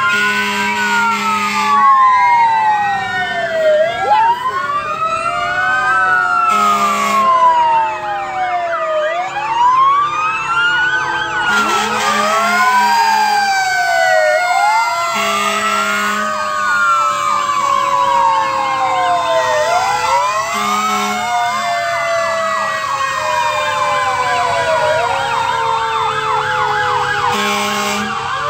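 Fire truck sirens wailing, several overlapping, each rising quickly and falling slowly about every four to five seconds. Short horn blasts sound every few seconds over them.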